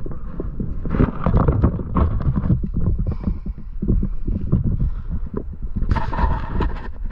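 Irregular rumbling wind buffeting and handling noise on a moving camera's microphone, with a brighter rustle about six seconds in.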